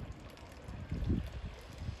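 Wind buffeting the microphone in uneven low gusts, strongest about a second in, over a steady rush of running water.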